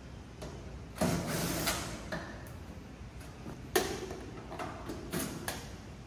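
Sheet-metal front service panel of a Daikin VRV IV outdoor unit being unhooked and lifted off. Metal knocks and scrapes, with a longer scrape about a second in and the sharpest knock nearly four seconds in.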